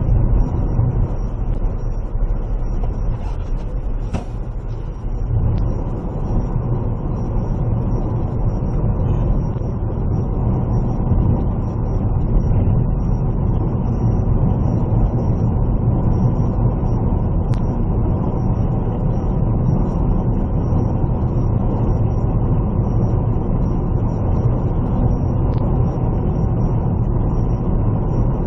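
A road vehicle driving steadily: an even, low engine and road noise.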